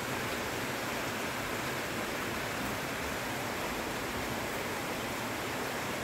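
Heavy rain falling steadily: a dense, even hiss with no single drops standing out.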